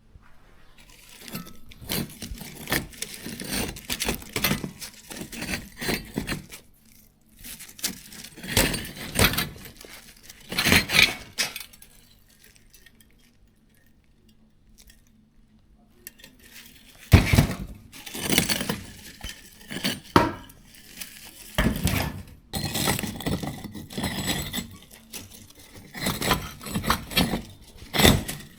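Irregular clinking and clattering of hard objects being handled, with a quiet pause midway that ends in a loud knock before the clatter resumes.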